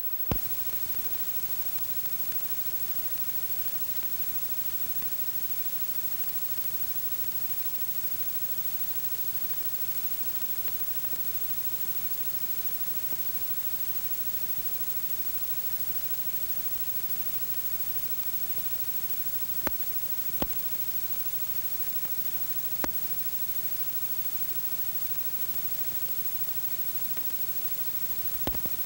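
Steady hiss from an old film print's soundtrack, with no music or voice on it, broken by a few sharp pops, most of them in the second half.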